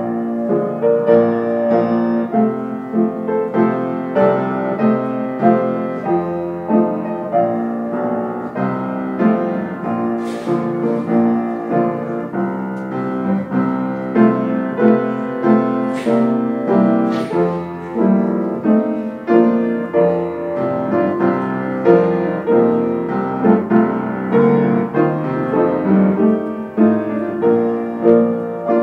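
Piano playing offertory music, a slow steady stream of chords and melody.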